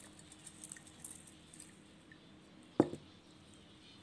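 Beaded, glitter-filled slime squishing and faintly crackling under a glass jar pressed into it, with one sharp pop near the end.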